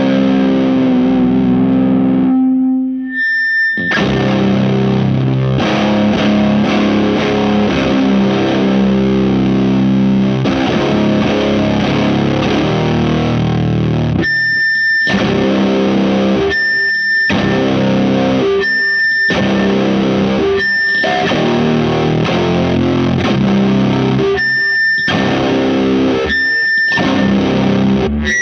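Heavily distorted electric guitar played through a Space Sounds Meteor Distortion pedal. Loud held chords ring out for the first half, then short chords are played and cut off abruptly, with a thin high steady tone heard in the gaps between them.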